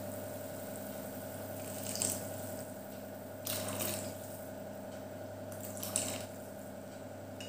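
Cornflour slurry poured slowly into simmering soup in a wok, with soft liquid splashing about two, three and a half and six seconds in, over a steady low hum.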